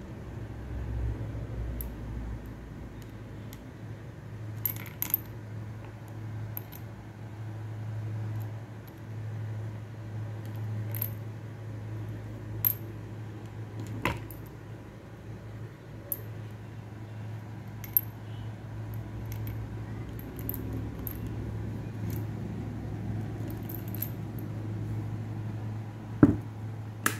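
Brass .22 Magnum cartridges clinking against one another and against a revolver's cylinder as they are handled: scattered light metallic clicks, with a louder click about a second before the end.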